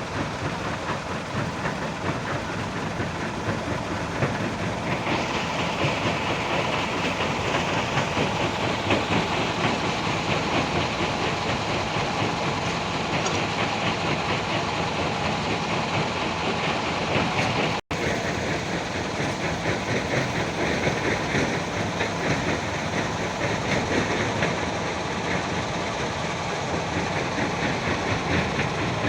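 Excavator at work, its diesel engine running under a dense, continuous rattling clatter. The sound gets brighter about five seconds in and cuts out for an instant about two-thirds of the way through.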